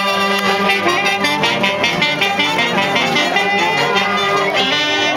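Live brass band with trumpets playing a dance tune.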